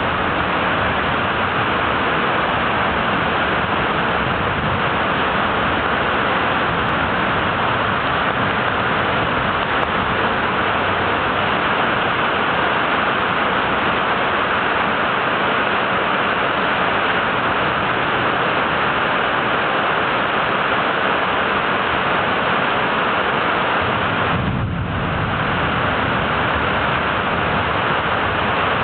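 Steady, loud rush of heavy falling water from a tropical downpour, with a deeper low rumble added over the last few seconds.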